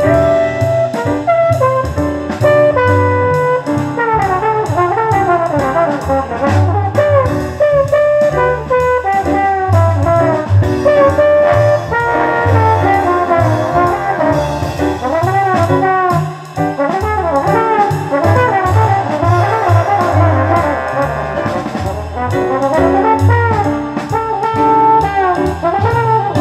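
Brass-led jazz playing from a heavily scratched CD in a Denon DCD-595 CD player, heard through loudspeakers. It plays on without skipping or dropouts, which shows the player reading the scratched disc well.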